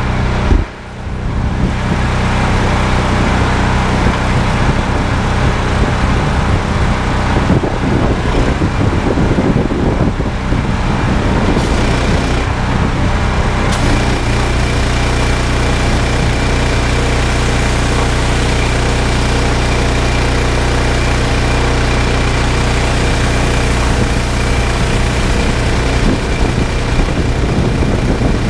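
Loncin G420 single-cylinder petrol engine running a pressure washer pump, loud and steady under load while water sprays through a rotary surface cleaner. Its note shifts about halfway through, when a thin steady whine comes in.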